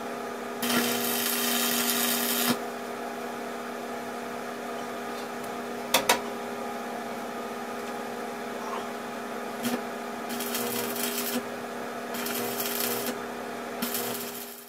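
Electric arc welder crackling and hissing in four short bursts as welds are laid on a steel-tube door frame, over a steady electrical hum. Two sharp metallic knocks about six seconds in.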